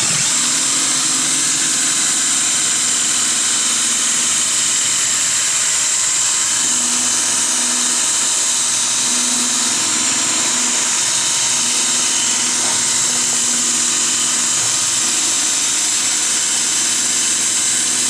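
Power drill run at full speed without letting off, spinning the shaft of an X13 variable-speed blower motor used as a generator under a lamp load: a steady, even drill whine with the hum of the spun motor. It starts at once, right at the beginning.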